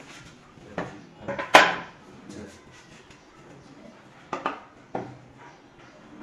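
Sharp knocks of plywood shelf panels being handled and fitted together at a corner. There are three knocks about a second in, the loudest near the middle of them, and another three a little past four seconds.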